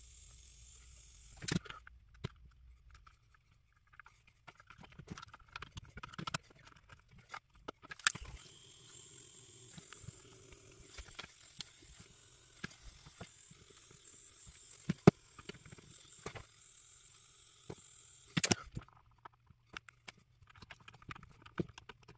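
Scattered light clicks and taps of small hand tools and switch parts against a radio transmitter's plastic case and the workbench during switch soldering, a few of them sharper, over a faint steady hiss.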